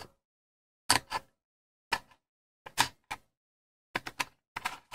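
Short clicks and taps of a small screwdriver and screws being handled on a transceiver's mounting screws, in small clusters about once a second.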